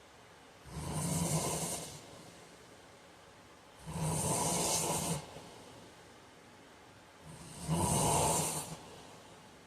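A man snoring in his sleep: three loud snores about three seconds apart, each lasting just over a second, with quieter breathing between.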